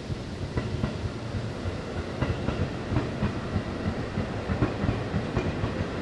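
Strong gusting wind rumbling on the microphone and shaking pine branches, with irregular clicks and knocks. It cuts off suddenly at the end.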